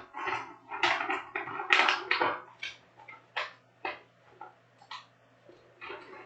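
Trading cards and pack wrappers being handled: a quick run of short rustles and crinkles, thinning out after the first couple of seconds, over a steady low hum.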